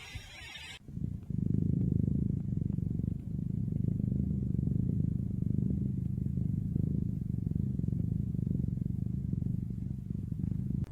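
A cat purring: a steady, low, pulsing rumble that starts about a second in and runs on.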